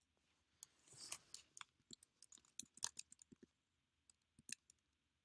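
Faint keystrokes on a computer keyboard, typing a word into a search box: a quick irregular run of taps over about three seconds, then a few more taps about a second later.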